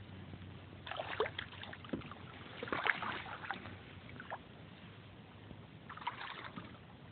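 Hooked smallmouth bass splashing and thrashing at the water's surface beside a boat, in short irregular bursts about a second in, around three seconds, and again around six seconds.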